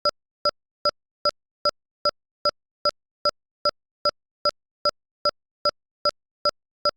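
Short electronic pips repeating evenly, about two and a half a second, each a brief blend of a few high tones, with silence between them.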